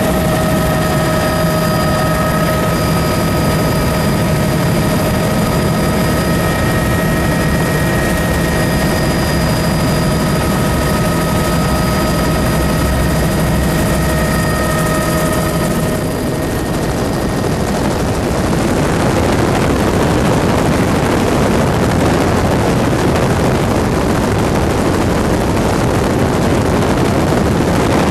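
Helicopter running close by: a steady turbine whine over a dense engine and rotor noise. About sixteen seconds in the whine fades out and a louder, rushing noise takes over.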